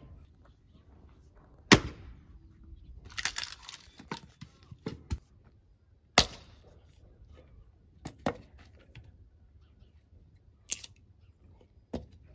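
Irregular sharp knocks and clacks. The loudest come about two seconds in and again about six seconds in, with a brief scraping rustle between them.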